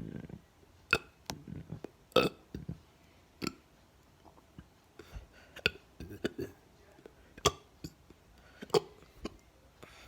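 A person hiccuping repeatedly: six sharp hiccups at uneven gaps of roughly one to two seconds, with softer clicks between them.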